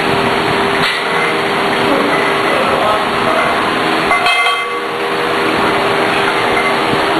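Steady loud whirring of large gym fans with a constant hum, and a single sharp knock about a second in.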